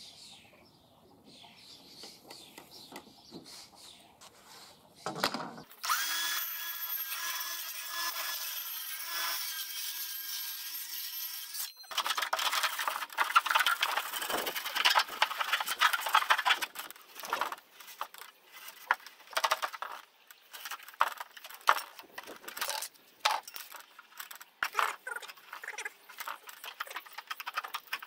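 Cutting through an insulated steel-skinned roof panel. A tool runs steadily at a fixed pitch for about six seconds and cuts off sharply. After that come fast, irregular rasping strokes of hand-cutting through the panel's skin and foam insulation.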